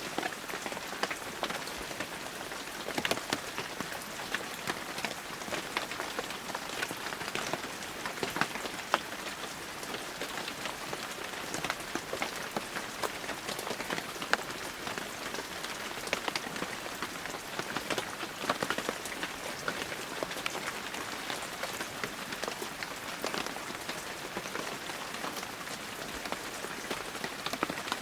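Heavy rain falling steadily, a dense hiss with many separate drops striking close by as sharp ticks.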